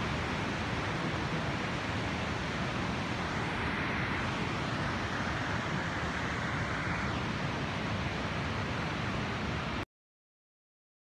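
Steady rushing noise of a swollen river in flood down in the gorge, cutting off abruptly near the end.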